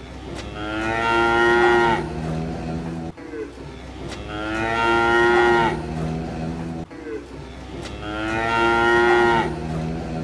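Cow mooing: three long moos in a row, each the same drawn-out call.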